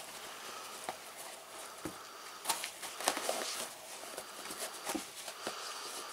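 A dog chewing on a sneaker: irregular soft clicks and scuffs of teeth working at the shoe.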